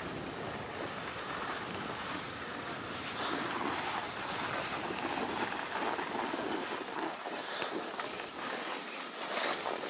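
Skis sliding over snow, a steady rushing hiss, with wind noise on the microphone.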